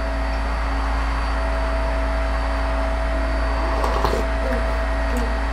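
Steady hum and hiss of room tone with a few faint steady pitched tones in it, level throughout. Faint small sounds come about four seconds in.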